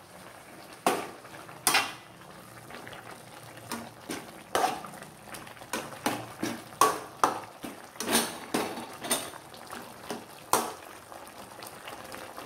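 Metal spoon clinking irregularly against a stainless steel cooking pot as salt is stirred into the soup, over the faint bubbling of the soup at the boil.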